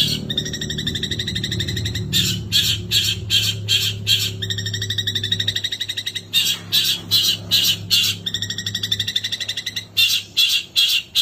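Long-tailed shrike (cendet) singing a long unbroken song. It alternates bouts of harsh chattering notes, about four a second, with a fast buzzing trill held at one pitch, switching back and forth three times.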